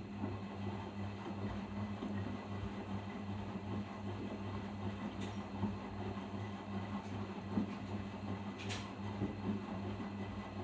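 Arçelik 5083 washing machine running its final rinse: a steady low hum with water noise, and a single sharp click about three-quarters of the way through.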